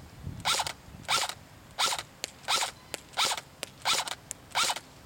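ICS-92 Galil airsoft electric rifle (AEG) firing on semi-auto, each shot a short whirring snap of the motor and gearbox cycling once, about seven shots at an even pace of roughly one every two-thirds of a second. Fainter single sharp clicks fall between some of the shots.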